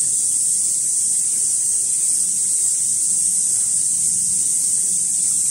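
Steady high-pitched hiss over a low, even hum from a running vertical sachet-packing machine filling and sealing tomato sauce sachets, with no distinct sealing strokes standing out.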